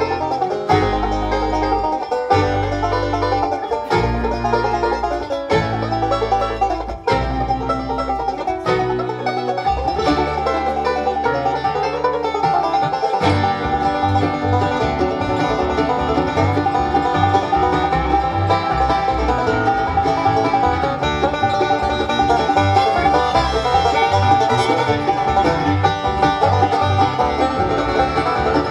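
Bluegrass band playing an instrumental tune led by two banjos, with mandolin, acoustic guitar, fiddle and upright bass. The opening comes in accented hits of the whole band with gaps in the bass, then about halfway through it settles into a steady beat with the bass plucking evenly underneath.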